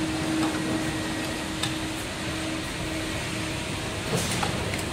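Steady machine hum and hiss, with a few faint light clicks of the steel wire fryer basket being handled on its hook.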